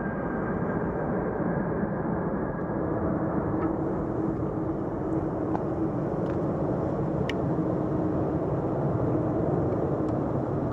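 Jet airliner engines running, a steady roar with a faint whine.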